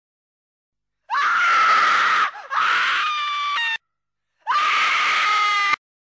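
Three long, high-pitched screams, each swooping up sharply at the start and then held, cutting off abruptly with dead silence between them.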